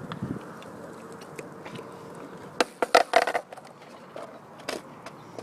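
A quick clatter of sharp clicks and knocks a little past halfway, over steady background noise.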